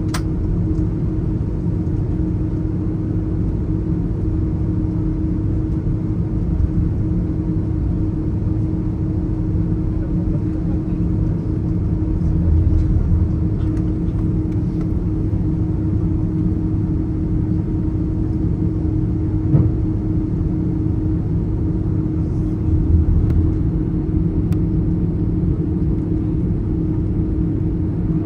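Steady low rumble inside the cabin of an Airbus A330 airliner, its engines and airflow running with a constant hum, and a few faint knocks in the cabin.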